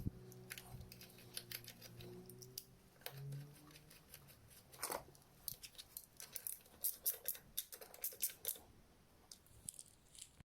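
Irregular light clicks and taps of hand tools and small metal parts being handled while reassembling a scooter engine.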